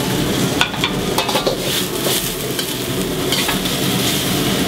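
Rice noodles and bacon sizzling in hot oil in a wok as they are stir-fried, with a steady hiss broken by several sharp scrapes and knocks of a utensil against the wok.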